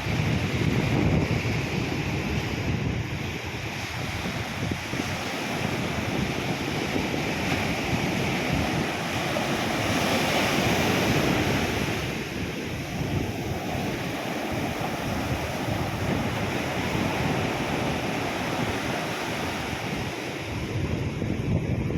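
Sea waves breaking and washing on a beach, with wind buffeting the microphone in a fluttering low rumble. The surf swells louder about ten seconds in, then eases.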